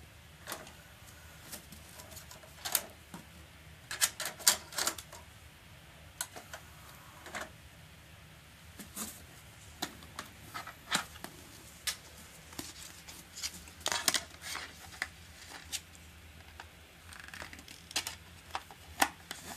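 A plastic DVD case and disc being handled: scattered sharp clicks and taps, in clusters about four seconds in and again around fourteen seconds.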